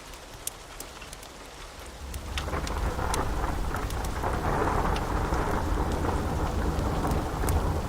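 Steady rain with sharp drops pattering close by, then about two seconds in a long roll of thunder builds and keeps rumbling over the rain.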